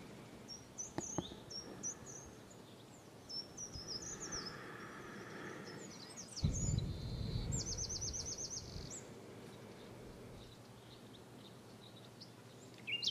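Outdoor birdsong: scattered short high chirps and one fast trill of rapidly repeated notes past the middle. A soft low rumble sets in about six and a half seconds in and lasts a couple of seconds.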